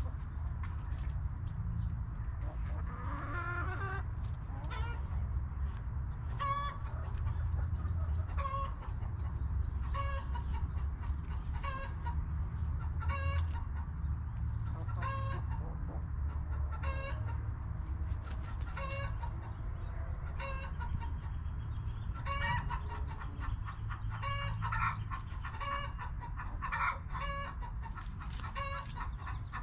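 Backyard hens clucking, with one short call repeated about once a second and a busier stretch of calling a little before the end, over a steady low rumble.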